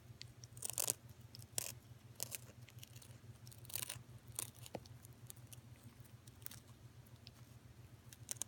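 Cockatoo biting and crunching on hot fries, a crunchy corn snack: short, irregular crunches every second or so over a low steady hum.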